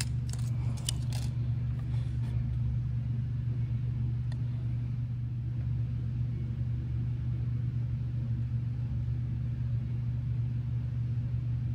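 A steady low rumble or hum that stays even throughout, with a few light clicks in the first second or so.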